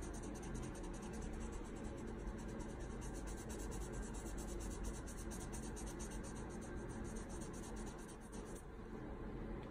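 Felt-tip marker scribbling on paper, colouring in a shape with quick, steady back-and-forth strokes that grow lighter near the end.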